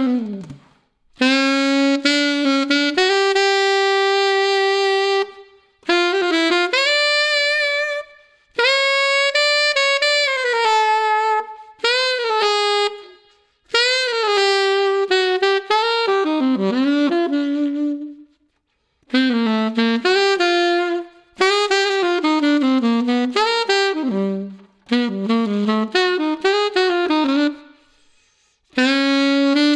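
Yanagisawa WO33 alto saxophone with a brass KZ1 neck, played solo in short melodic phrases separated by brief pauses for breath, with vibrato on some held notes.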